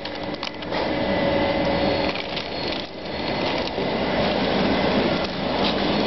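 Continuous mesh-belt nut baking machine running, a steady mechanical noise from its belt drive, with a few clicks in the first second.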